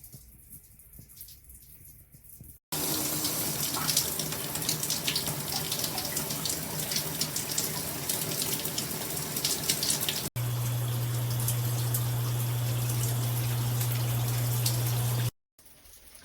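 Water spraying from a filtered shower head in a loud, even hiss that starts abruptly a few seconds in. Partway through, a steady low hum joins the spray, and both cut off suddenly near the end.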